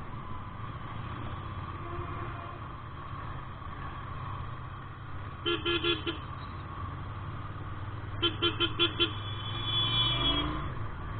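A vehicle horn beeping over a steady low riding rumble: about four quick beeps just after halfway, then about five more quick beeps followed by a longer held honk near the end.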